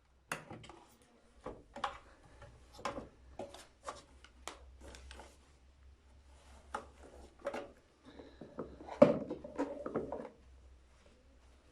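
Irregular handling noises: a string of sharp clicks and light knocks with some rubbing, the loudest knock about nine seconds in, followed by a short flurry of rubbing and knocks.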